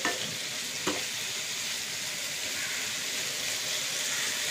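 Soya chunks and baby corn sizzling in hot oil in a nonstick frying pan as they are stir-fried, with the spatula knocking against the pan twice in the first second.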